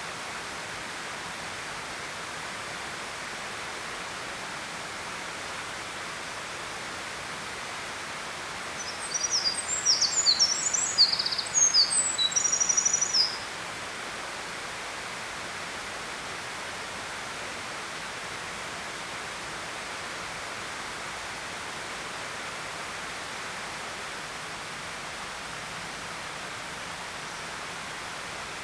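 A songbird sings one fast, high-pitched phrase of many short varied notes, about four seconds long, starting about nine seconds in, over a steady rushing background hiss.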